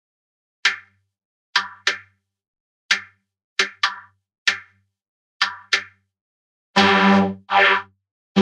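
Edited cartoon jump-and-hit sound effect: nine short, sharp hits, each ringing briefly with a clear pitch, at uneven spacing, followed near the end by two longer, louder pitched sounds.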